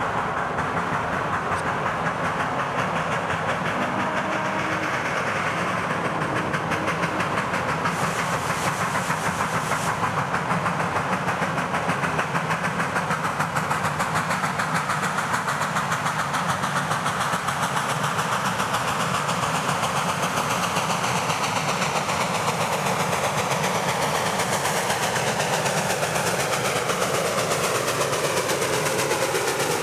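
2-8-0 steam locomotive No. 734 chuffing as it approaches with a freight train, a fast steady run of exhaust beats over the rumble of the train. It grows a little louder, and the pitch of the running sound falls near the end as it passes close by.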